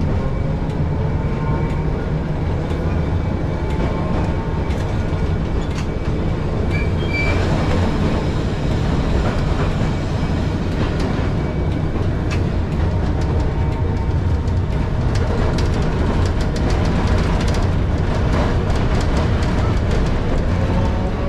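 ATM Class 1500 tram running on its rails: a steady low rumble with clicks and clatter over the track from about seven seconds in, and a motor whine rising in pitch near the end as it picks up speed.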